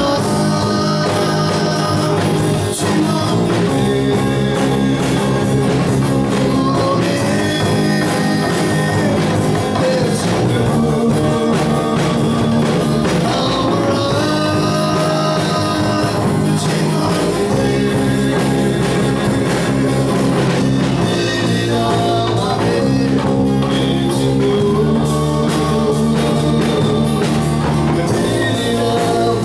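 A man singing a slow song into a microphone while strumming an acoustic guitar, the sung line rising and falling over steady chords.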